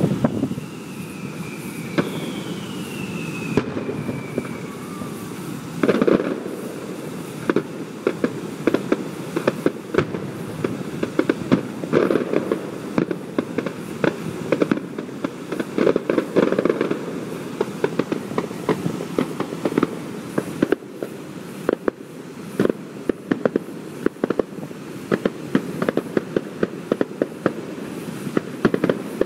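Fireworks display: a dense run of booms and crackling pops with heavier bursts every few seconds, and two falling whistles in the first few seconds.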